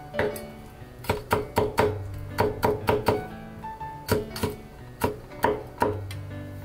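Chinese cleaver chopping crushed garlic on a wooden cutting board: sharp knife strikes in quick runs of three or four, about four a second, over background music.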